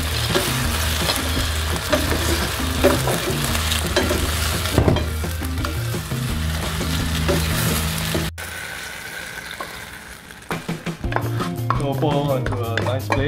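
Sweet and sour sauce sizzling in a frying pan as a wooden spatula stirs and tosses battered fish pieces through it. About eight seconds in the sizzle cuts off, and near the end come a few knocks and scrapes as the spatula works the fish out of the pan.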